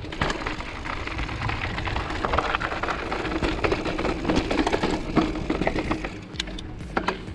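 Mountain bike rolling down a loose gravel and dirt singletrack: tyres crunching over small stones and the bike rattling with many quick, irregular clicks over the bumps.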